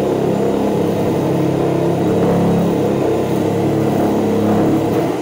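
Corded reciprocating saw running steadily while cutting through the pinch-welded sheet-metal edge of a pickup truck's bed.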